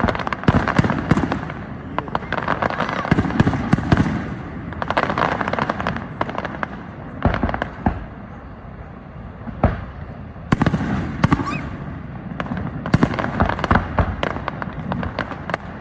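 Fireworks display: clusters of rapid bangs and crackling bursts, easing off into a quieter lull about eight seconds in before picking up again.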